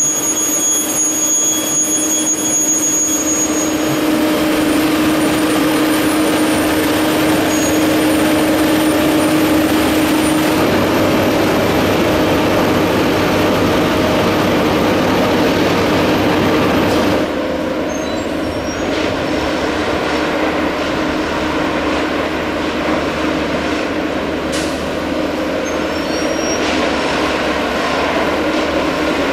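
Railway track maintenance machines running: a loud, steady diesel-and-hydraulic drone with a high whine in the first few seconds. The sound drops a little in level about two-thirds of the way through.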